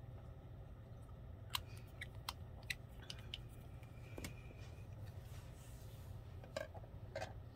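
Small sharp clicks and taps of plastic as a gel polish bottle, its brush cap and a nail tip are handled, a cluster of them a second and a half in and two more near the end, over a faint steady low hum.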